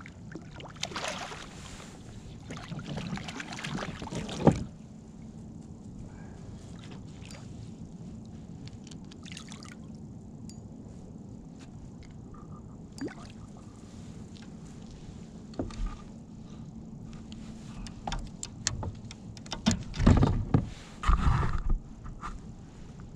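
Hooked red drum thrashing and splashing at the water's surface beside a kayak for the first few seconds, ending in one sharp splash. Near the end comes a cluster of splashes and knocks as the fish is brought up out of the water.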